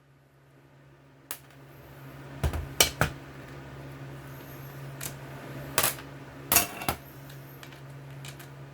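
Metal hand tools and bolts clinking and knocking against a snow thrower's auger gearbox during disassembly. There are about eight sharp clinks, in irregular clusters, over a steady low hum.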